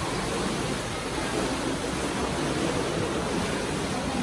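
Water bubbling and rushing steadily from a man-made spring pool.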